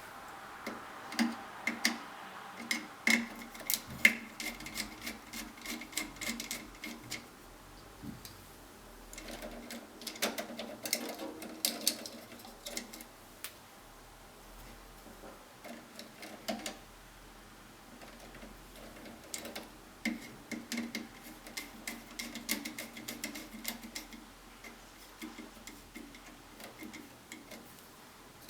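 Irregular small clicks, taps and scrapes of hand work inside an electrical panel: a screwdriver on breaker terminal screws, wires being handled, and plastic current-sensor housings clicking together.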